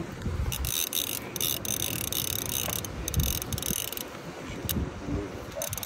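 Heavy saltwater fishing reel ratcheting and whirring in spells as line is worked against a hooked goliath grouper.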